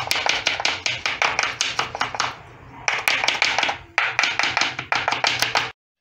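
Knife chopping fresh coriander on a wooden chopping board: rapid, even strokes, with a short break a little past two seconds and another just before four seconds, then stopping suddenly near the end.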